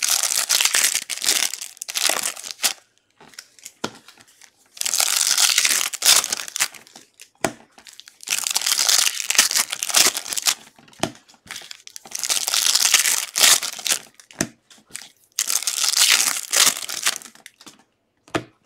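Trading card pack wrappers being torn open and crinkled by hand, in about five long bursts of crinkling with short pauses and clicks between them.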